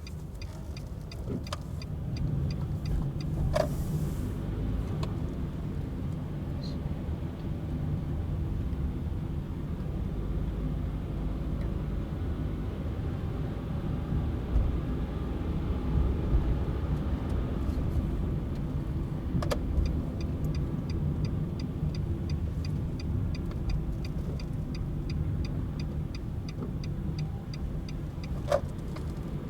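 Car running slowly, a steady low engine and road rumble heard inside the cabin. A regular ticking of about three ticks a second, like a turn-signal indicator, runs for the first few seconds and again through the last ten seconds, with an odd single knock.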